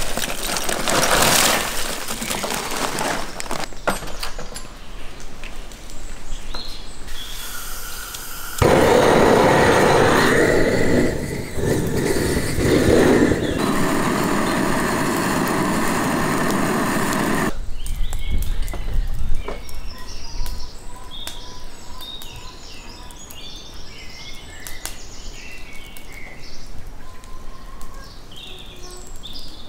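Lump charcoal clattering as it is poured from a paper sack into a steel grill bowl. This is followed by the loud, steady hiss of a gas torch blasting the coals to light them for about nine seconds, which stops abruptly. Afterwards, quieter outdoor background with birds chirping.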